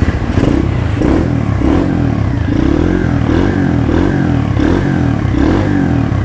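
Apollo RXF 125 Free Ride pit bike's 125 cc single-cylinder four-stroke engine being revved in repeated short throttle blips, about one and a half a second, the pitch rising and falling each time.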